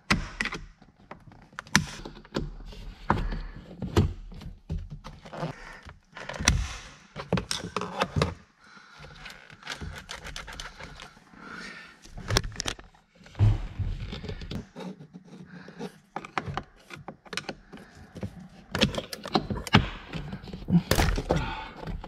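Irregular clicks, taps and knocks of a flat-blade screwdriver working behind an Audi steering wheel against the airbag's retaining spring and plastic trim, prying to release the airbag.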